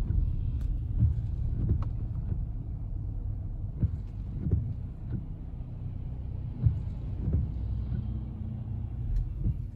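Low, steady vehicle rumble heard from inside a car's cabin in slow traffic, with a few light knocks.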